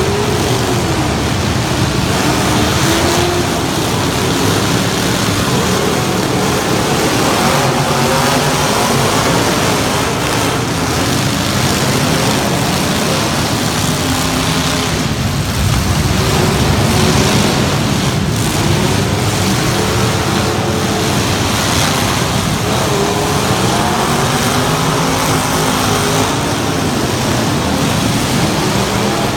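Truck engines running loud, revving up and down again and again over a steady noise.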